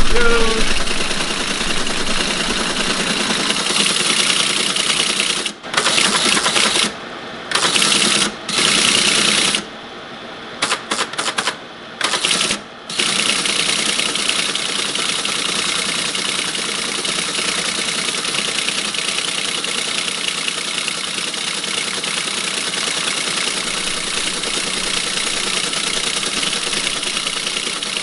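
1964 Teletype ASR33 printing at 110 baud: a fast clatter of character strikes over the hum of its running motor. About a third of the way in it prints in short stop-start spurts with brief pauses, then runs on steadily.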